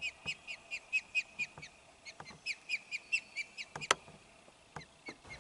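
Osprey calling: a rapid series of short, high whistled chirps, about four a second, that pauses briefly about two seconds in and thins out near the end. A sharp click sounds about four seconds in.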